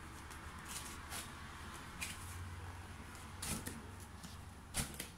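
Pages of a large wallpaper sample book being turned and handled on a wooden table: a few soft rustles and taps over a faint low hum.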